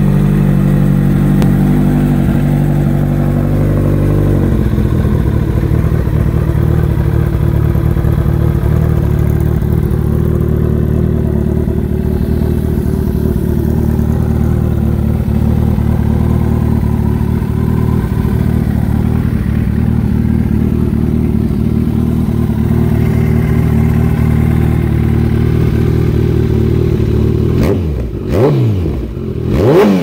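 Kawasaki ZX-14R's inline-four engine running steadily through a short RLS Exhaust slip-on muffler, then blipped twice near the end, the pitch rising and falling quickly each time.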